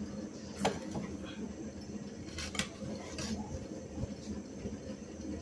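Stainless-steel plates and bowls clinking and scraping at a meal table as food is served and eaten, a handful of sharp clinks spread through the moment.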